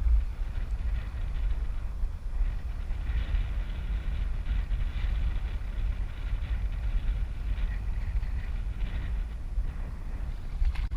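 Strong wind buffeting the microphone as a steady, uneven low rumble, with waves washing in the background.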